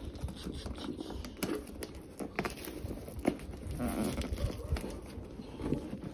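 Hands tearing open a taped cardboard shipping box: cardboard and tape rustling and ripping in uneven scrapes and clicks, with a longer tearing rasp about four seconds in.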